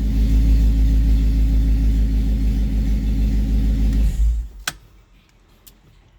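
Audi RS4 engine running loud and steady with its exhaust open at the downpipe, no pipe connected after it. About four seconds in it shuts off abruptly, and a sharp click follows.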